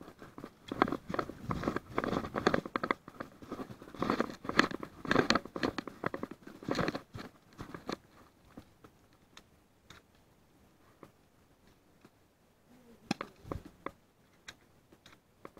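Footsteps crunching through dry fallen leaves, fast and dense for the first seven seconds or so. After that the crunching stops, leaving quiet with a few scattered sharp clicks.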